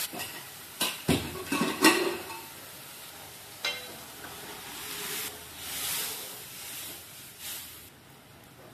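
A metal spoon stirring dal in a cooking pot, knocking against the pot several times in quick succession, with one more knock a little later. A soft hiss of sizzling follows near the middle.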